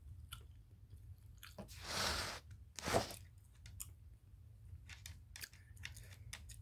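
A person chewing food with small crunches and mouth clicks, close to the microphone. A louder, noisier burst comes about two seconds in and a shorter one about a second later.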